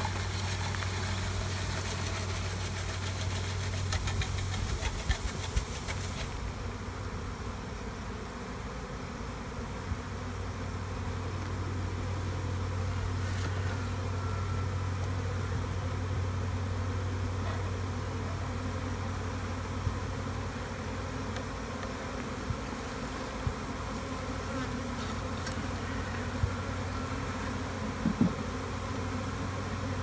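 A swarm of honeybees buzzing in a steady, continuous drone. A few short, sharp knocks of handling are heard, several about four to six seconds in and more near the end.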